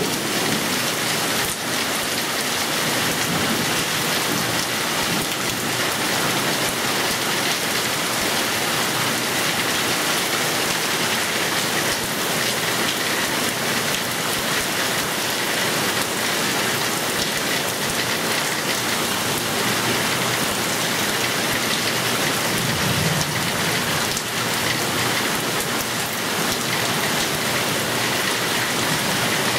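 Heavy thunderstorm rain pouring steadily onto garden foliage and the ground, a dense even hiss that does not let up.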